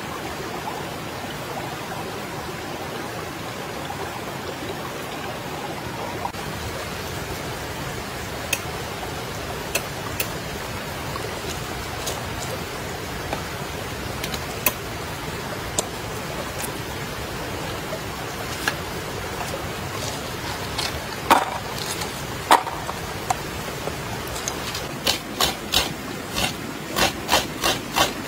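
Steady rush of flowing river water with scattered small clicks and knocks; near the end a regular run of sharp strikes on wood begins, about two to three a second.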